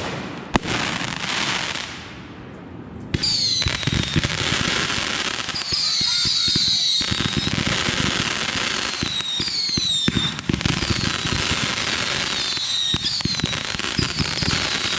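Consumer fireworks cake firing: a few sharp bangs at first, then about three seconds in a dense, continuous crackling with many short falling whistles.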